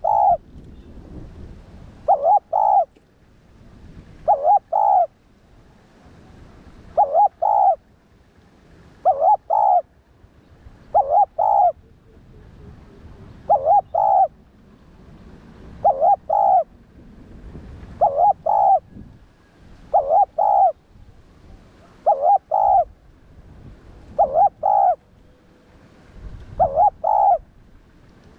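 Spotted dove cooing: a short phrase of two or three quick coos, repeated steadily about every two seconds, each phrase much like the last.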